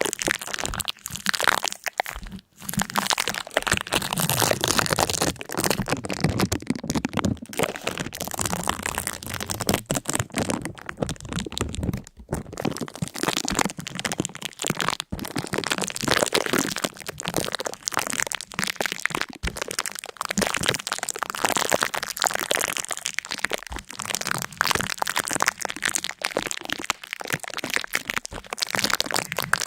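Dense, continuous crackling and crunching, like something brittle being crushed or broken.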